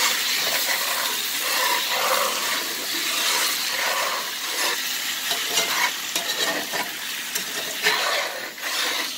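Water sizzling and steaming in a hot skillet of sliced potatoes while a spatula stirs and scrapes them in repeated strokes. This is deglazing: the added water is lifting the browned, caramelized bits off the bottom of the pan.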